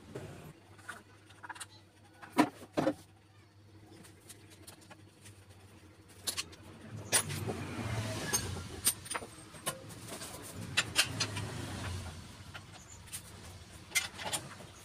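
Scattered sharp knocks and clicks from work on the bike, two loud ones about two and a half seconds in. A vehicle's engine rumbles up and fades away in the middle.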